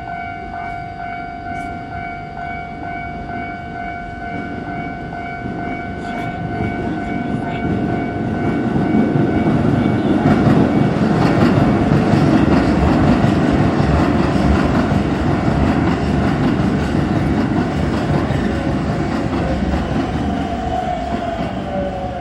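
Japanese level-crossing alarm ringing steadily while a Keisei Main Line train passes over the crossing. The train's rumble and rail clatter build up from about six seconds in, are loudest around the middle, then ease off, with a falling whine near the end.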